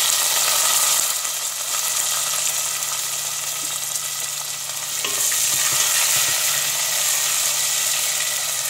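Chopped onions sizzling in hot oil with whole spices in a pan: a loud, steady, high hiss, with a light knock of a wooden spoon about five seconds in as stirring begins.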